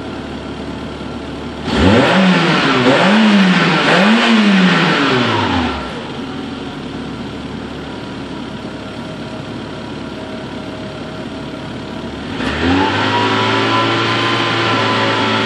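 Peugeot 106 Rallye's 1.6 8-valve four-cylinder engine on its standard exhaust. It idles, is blipped up three times in quick succession about two seconds in and drops back to idle, then near the end its revs are raised and held steady.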